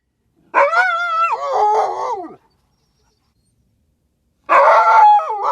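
A dog's drawn-out, wavering cries: one call lasting nearly two seconds, then a second starting near the end.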